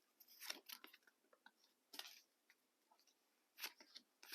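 Faint, scattered rustles and clicks of trading cards being handled and flipped through by hand, near silence between them.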